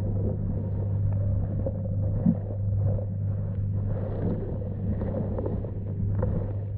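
Underwater pond sound picked up by a submerged camera: a steady low hum and rumble with scattered faint clicks and one brief knock a little over two seconds in.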